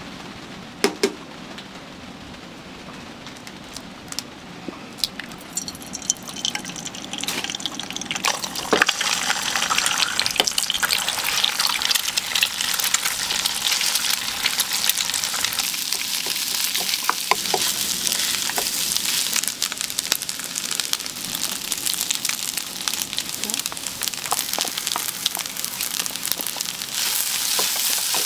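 Food frying in a hot pan and being stirred: a few sharp knocks about a second in, then a sizzle that builds from about six seconds in and stays loud, with scraping and clinks throughout.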